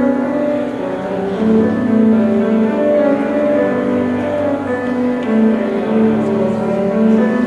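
Classical music: a cello playing a slow melody of long-held notes over piano.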